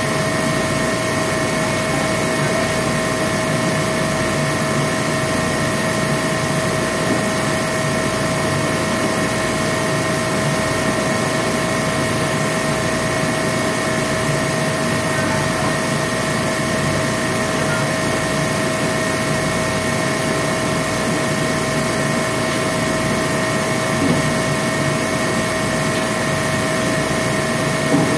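Machinery running steadily: an even, unchanging noise with a few constant tones over it.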